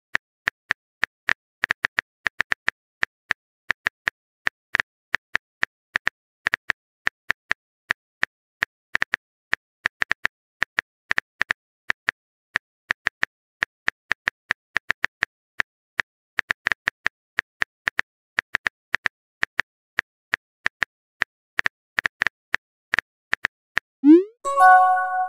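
Phone keyboard typing sound effect: short, irregular clicks, about three a second. Near the end comes a rising pop and a brief ringing tone, the message-sent sound.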